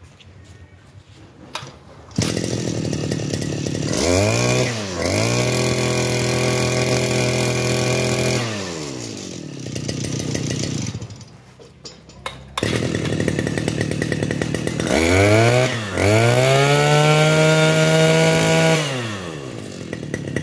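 Mitsubishi T240 small two-stroke engine running, revved from idle up to full throttle and held for several seconds, twice, dropping back to idle after each. The pitch rises quickly on each rev-up and slides back down as the throttle is released.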